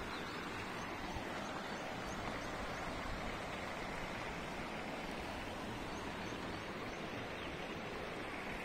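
Steady rush of heavy rain and muddy runoff water flowing across flooded farm fields.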